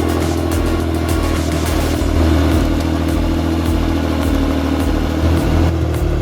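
A big two-stroke chainsaw engine running steadily under background music with a steady beat. The engine note shifts near the end.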